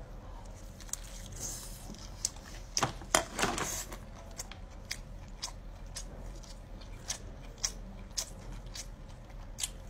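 Crisp fried food crunching, in a series of short sharp clicks and crunches, about one or two a second, with a louder cluster of crunches about three to four seconds in.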